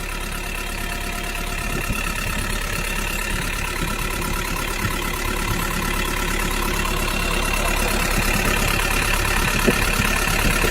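Small motor of a homemade mini tractor running steadily, slowly getting a little louder.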